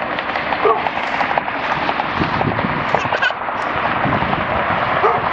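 Steady jet engine noise of a Boeing 787 Dreamliner on the runway, with a crackle running through it. A few short yelping calls sound over it, one about a second in and others near the end.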